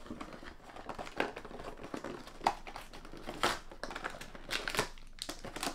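Cardboard and plastic toy packaging being poked open by hand, crinkling and rustling with scattered sharp clicks.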